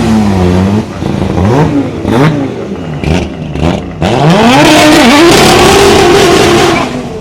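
Renault Clio rally car engine on a special stage: revs dip and climb several times, then about four seconds in it pulls hard and holds high revs for nearly three seconds before falling away.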